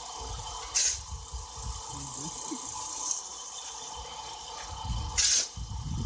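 Sand sifting through the round mesh screen of a homemade sand sieve: a steady hiss over a low rumble, with two short, louder rushes, about a second in and near the end.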